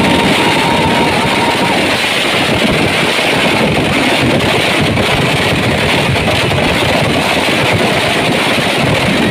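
Pooram fireworks barrage: firecrackers going off so rapidly that they merge into one continuous loud roar, with a whistling tone over it for the first second and a half.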